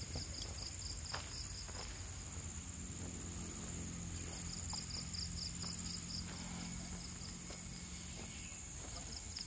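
A chorus of insects chirring steadily, with a fast pulsing trill over a continuous high buzz, and scattered soft footsteps on a trail, over a low rumble.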